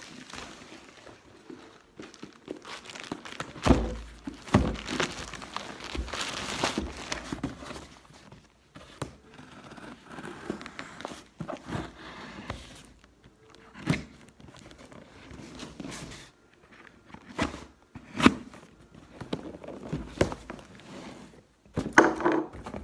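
A cardboard package being opened by hand: packaging crinkling and tearing, with scattered knocks and thuds of cardboard, the sharpest about four seconds and eighteen seconds in.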